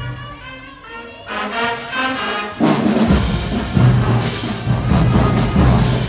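High school marching band playing: brass holding notes at first, then about two and a half seconds in the full band with drums comes in loud.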